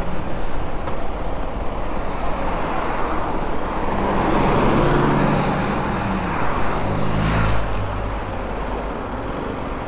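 Motorcycle ride in road traffic: engine running under a steady rush of road and wind noise. An engine hum swells in the middle, and a louder rush comes about seven and a half seconds in.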